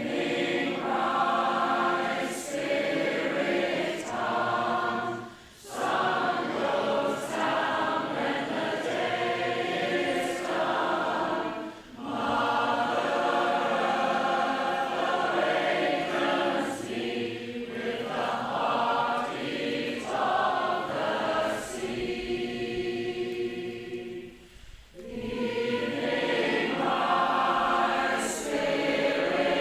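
Women's choir singing a cappella in harmony: long held chords in phrases, with short breaks between them about five, twelve and twenty-five seconds in.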